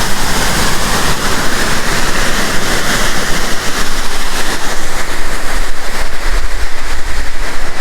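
Shepherd's Dell Falls, a waterfall, rushing loudly and steadily, with a constant noise of falling water.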